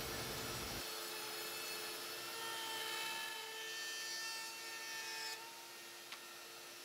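DeWalt compact router running with a mortising bit, a steady whine as it routes a circular recess into MDF against a jig. A little past five seconds in the higher part of the whine drops away and the sound gets quieter, followed by a single click.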